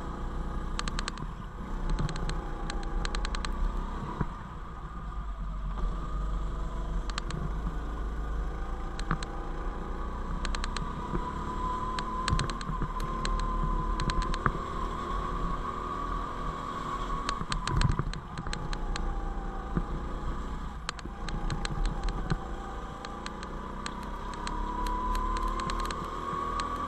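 Go-kart running at speed around a track: a whine that rises and falls in pitch with its speed, over a steady low rumble of wind on the onboard microphone. Scattered clicks and rattles come through throughout.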